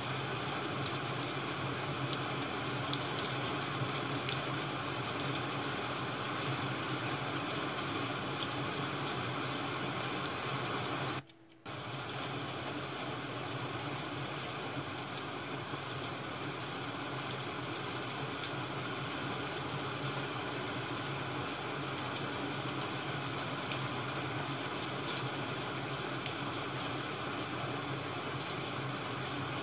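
Ambient track of steady rain and a crackling wood fire: an even hiss with sparse sharp crackles. It cuts out for a split second about eleven seconds in.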